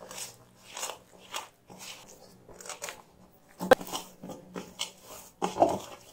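Hand kneading whole wheat flour and water into dough in a stainless steel bowl: irregular short rubbing and squishing strokes of dough against the bowl, louder and closer together from about halfway through as the dough comes together.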